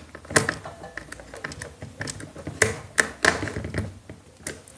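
Small screwdriver tightening a wire's clamp screw in the output terminal of a plastic DIN-rail over/under-voltage protector, making a run of irregular clicks.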